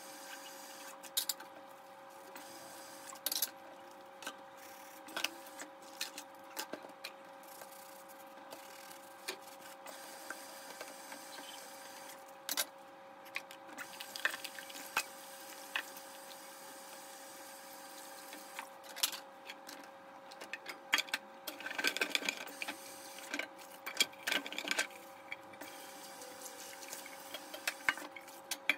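Scattered clicks and knocks of dishes and kitchenware being handled while a kitchen is cleaned up, thickest about three-quarters of the way through, over a steady low electrical hum.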